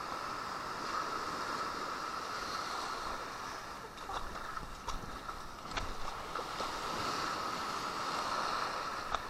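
Ocean surf washing and breaking in the shallows, a steady wash heard muffled through a waterproof camera housing, with a few light knocks in the middle.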